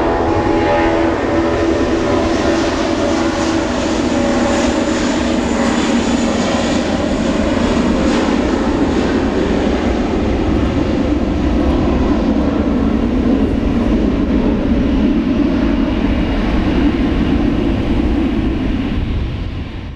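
Airbus A320's twin IAE V2500 turbofan engines at takeoff thrust on the takeoff roll: a loud, steady jet roar. The whine of the spool-up in the first few seconds gives way to a broad rumble, and the sound fades out at the very end.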